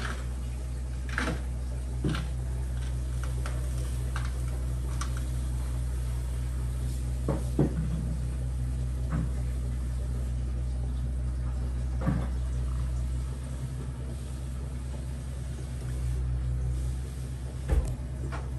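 Construction-site noise: a steady low machine drone with a handful of sharp knocks, about six, scattered through.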